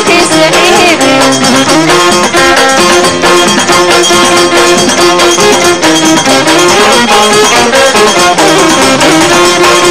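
Traditional Amazigh (Tashelhit) music: a woman's sung phrase ends about a second in, then a bowed ribab fiddle carries the tune over rhythmic percussion and clapping.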